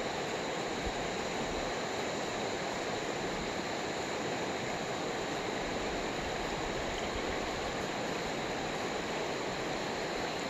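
Steady rush of a flowing river over its stony bed, even and unbroken.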